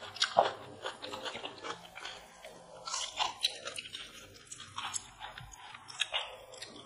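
People eating chicken biryani with their hands: close-up chewing and biting, irregular mouth smacks and short crunches with no steady rhythm.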